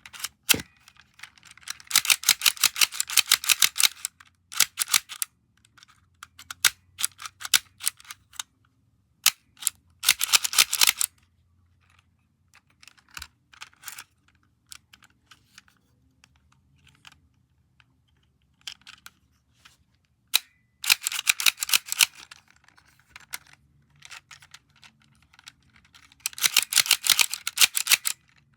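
Rapid clicking from a small object being fidgeted with: runs of sharp clicks lasting one to two seconds, about two seconds in, near ten seconds, past twenty seconds and near the end, with scattered single clicks between.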